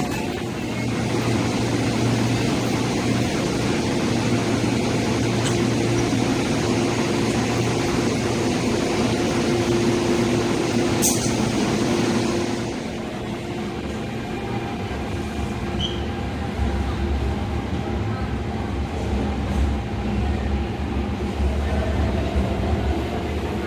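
MTR metro station platform noise: a train standing at the platform behind the screen doors, with a steady hum, crowd noise and a sharp click about eleven seconds in. At about thirteen seconds the sound changes to a quieter platform with a deeper low rumble from the train.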